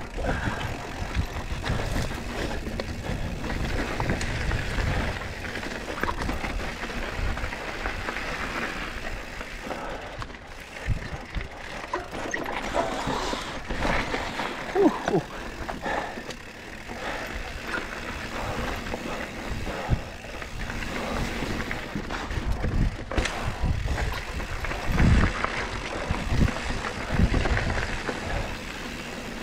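Lapierre 27.5-inch mountain bike ridden along a dirt and rock trail: tyre noise and the bike knocking and rattling over bumps, under an uneven low rumble.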